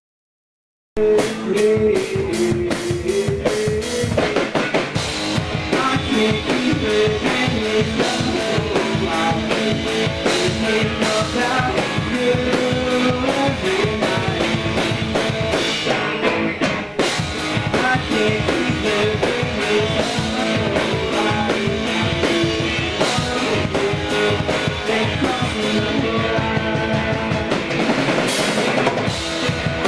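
Rock music with a drum kit and guitar, starting abruptly about a second in and playing at a steady level with a regular beat.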